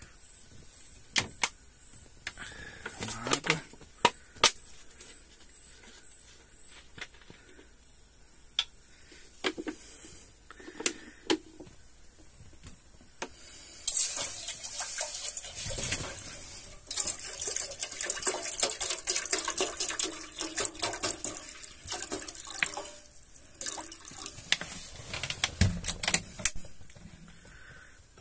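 Scattered knocks and clicks, then about halfway through, water poured from a plastic bottle into a metal cooking pot, splashing steadily for some twelve seconds before stopping near the end.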